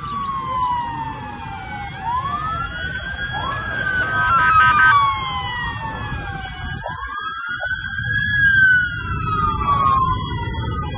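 Several emergency vehicle sirens wailing at once, their pitches rising and falling slowly and overlapping, over a steady low rumble.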